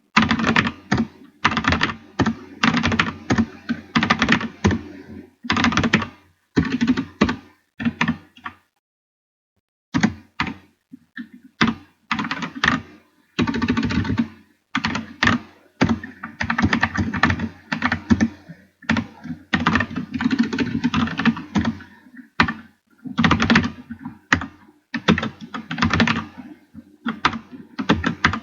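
Fast, dense clicking and clattering in bursts, like keys being hammered. There is a clean pause of about a second and a half about nine seconds in.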